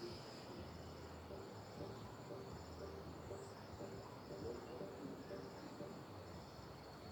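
Insects chirping in high, rapidly pulsed trills that repeat throughout, with a fainter lower pulsing sound beneath from about a second in.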